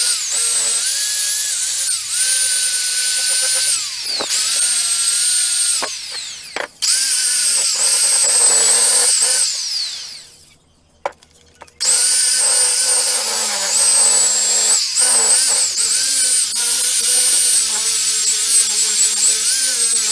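Small electric angle grinder with a buffing pad, running at speed and polishing an aluminium scooter crankcase cover; its high whine dips in pitch each time it is pressed onto the metal. It goes quiet for about a second and a half midway, then starts up again.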